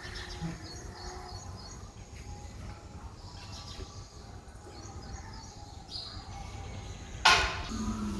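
Outdoor ambience with small birds chirping faintly over a steady low rumble. One sharp knock about seven seconds in is the loudest sound.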